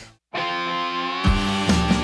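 Background music: after a brief moment of silence a new track starts on a held chord, and a steady beat with bass comes in about a second later.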